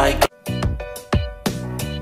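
Background music. A dense mix drops out sharply about a quarter second in, and sparser music with a steady beat of drum hits and held notes follows.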